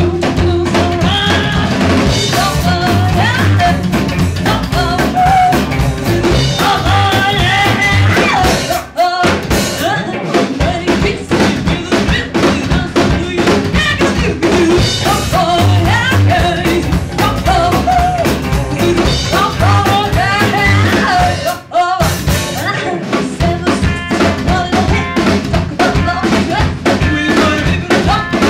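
Live band playing a song on upright bass, electric guitar and drum kit, the drums prominent with snare and bass drum. The band stops briefly twice, about nine seconds in and again a little after twenty seconds.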